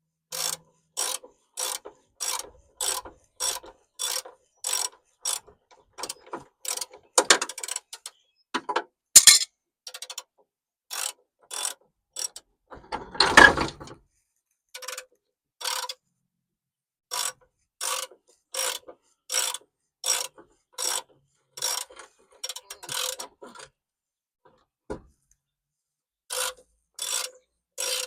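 Hand socket ratchet clicking in steady repeated strokes, about two a second, as a rusty bumper mounting bolt is backed out. A couple of louder metallic clatters come about a third and halfway through.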